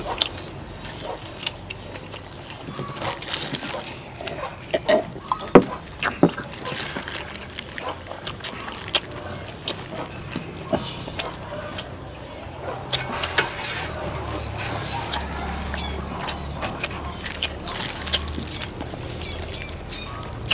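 People eating at a table: scattered clicks and knocks of hands, plates and utensils, with some liquid handling. A few short high chirps come in about three-quarters of the way through.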